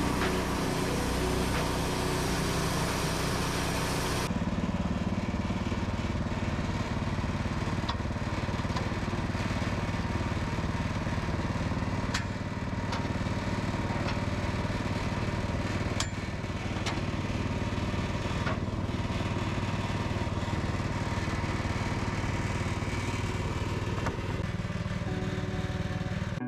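Portable sawmill's small gasoline engine running steadily, with a few sharp clicks or knocks scattered through.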